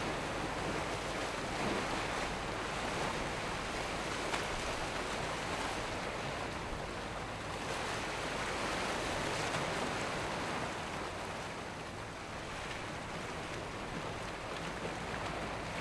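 Surf breaking and wind noise on the microphone, with the low, steady drone of a large motor yacht's engines as it runs through rough waves.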